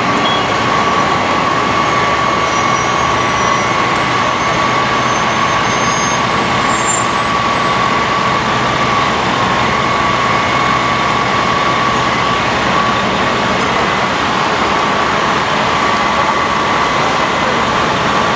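A fire truck's diesel engine running steadily, with a constant high whine over the rumble.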